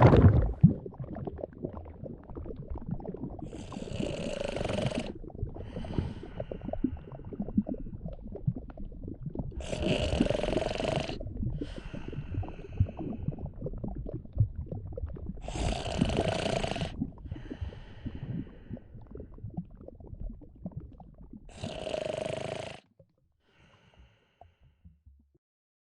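Slow snoring: four long snores about six seconds apart, each followed by a softer breath out, over a continuous low gurgling and squelching of a slime blob's belly. Everything stops a few seconds before the end.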